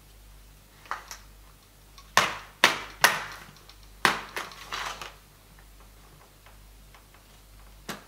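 A plastic baby doll being handled and moved: a scattered series of sharp knocks and clicks, the loudest bunched two to three seconds in.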